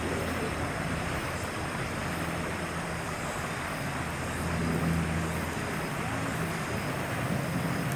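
A low engine drone that swells a little about halfway through, over a steady outdoor background hiss.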